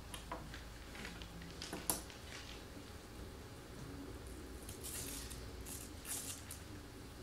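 Quiet room tone with a low hum, a few small clicks (the sharpest about two seconds in) and soft rustling near the middle and end.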